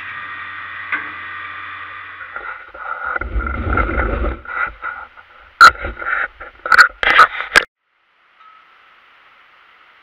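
Pillar drill press motor running with a steady hum, then stopping after about two seconds. Rumbling and scraping follow, then a quick series of sharp metal knocks and clunks. After that only a faint steady hiss remains.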